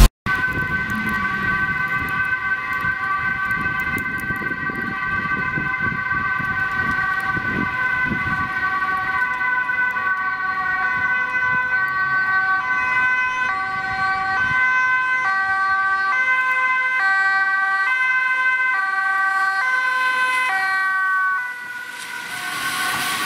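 Dutch ambulance two-tone sirens sounding, the high and low notes alternating roughly every two-thirds of a second, with the tones of a second siren overlapping. About 22 seconds in, the tyre hiss of a vehicle on a wet road rises as an ambulance passes close.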